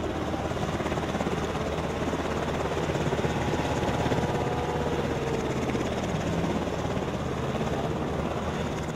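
Steady din of engines running on an aircraft carrier's flight deck, a continuous noise over a constant low hum.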